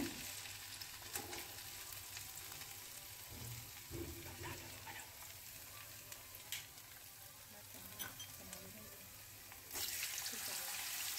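Potato sticks deep-frying in hot ghee: a steady sizzle with a few sharp pops. The sizzle gets louder near the end.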